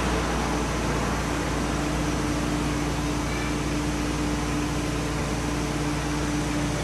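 Street traffic: a steady rumble and hum from a queue of cars running in slow traffic.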